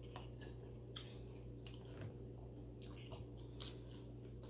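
Faint eating sounds: chewing and a handful of small wet clicks as grilled chicken inasal is picked apart by hand and eaten, over a steady low hum.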